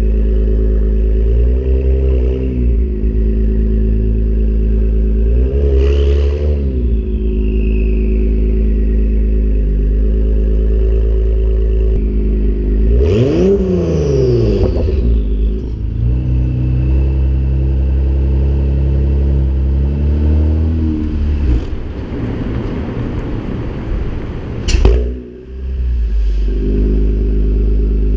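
Acura NSX's twin-turbo V6 running through a PRIDE valved exhaust with catted downpipes, cruising with a steady exhaust note and a few short blips of throttle, the biggest rev rising and falling about 13 seconds in. A sharp crack comes about three seconds before the end, followed by a brief drop in the engine sound.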